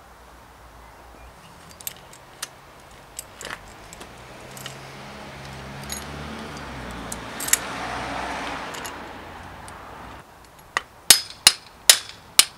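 Metal tools clinking against a steel bike's bottom bracket, then, near the end, a quick regular run of sharp ringing hammer strikes, about two to three a second, knocking on the bottom bracket cup to shift it out of the frame.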